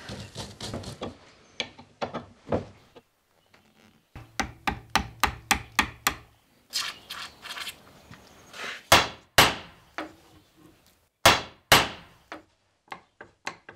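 Spanner and hands working on a Series 1 Land Rover steering linkage rod held in a steel bench vise, loosening its ball-joint end: a string of short metallic clicks and knocks with brief scraping. Two pairs of loud, sharp knocks come in the second half.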